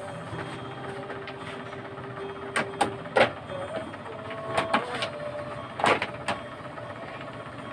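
Sharp clicks and knocks of plastic as a scooter seat and body panels are handled and fitted: about seven in quick succession through the middle few seconds, over steady background noise.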